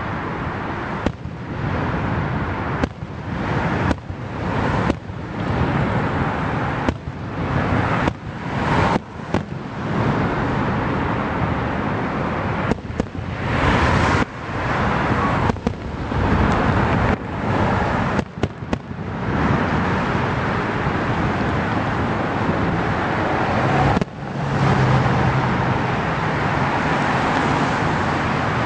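Fireworks display: a rapid, irregular string of loud bangs and crackling that runs almost without a break, turning into a dense unbroken wash in the second half.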